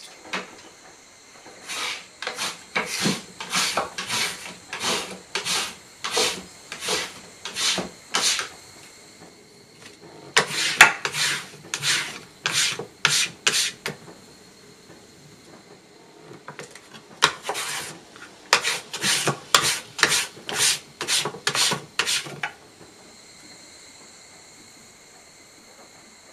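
Ramie (karamushi) strips being scraped with a hand scraper against a wooden board, stripping off the outer bark to free the fiber. There are three runs of quick scraping strokes, about two a second, with pauses between the runs.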